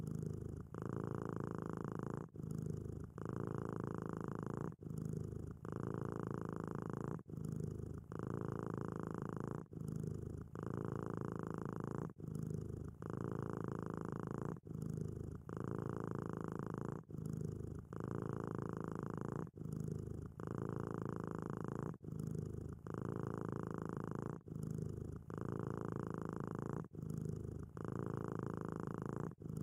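Cat purring steadily, the purr dipping briefly at each switch between breathing in and out, roughly once a second: the sound of a content cat.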